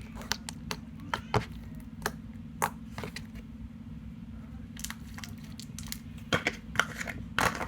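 Slime being squeezed and poked by hand, giving irregular sharp clicks and pops, more of them near the end.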